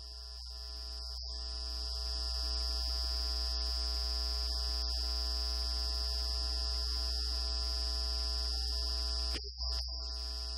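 Steady electrical hum and buzz with a high whine over it, and no speech. It swells over the first two seconds and drops out briefly about nine and a half seconds in.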